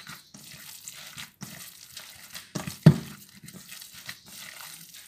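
Gloved hands kneading a wet meatball mixture of minced meat and grated potato in a stainless steel bowl: soft, irregular squelching and squishing, with one louder knock about three seconds in.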